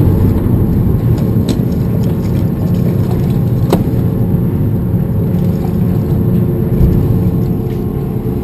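Party boat's engine running with a steady low rumble, with a couple of sharp knocks about a second and a half and just under four seconds in.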